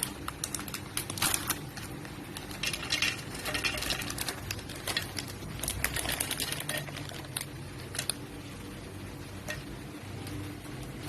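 Irregular clicks, taps and rattles of hard objects being handled, over a faint steady low hum.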